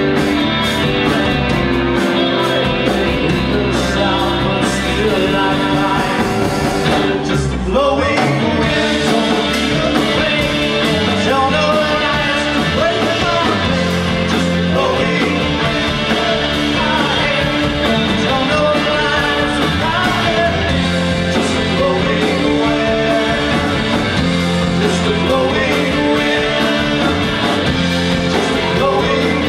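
Live rock band playing: electric guitars and a drum kit with a singer, at full volume through the band's amplifiers and PA.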